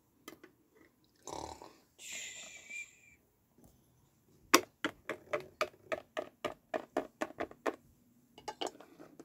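A short low noise and a hissing sound, then a quick run of light taps, about five a second, of a plastic toy figure hopped across a wooden tabletop.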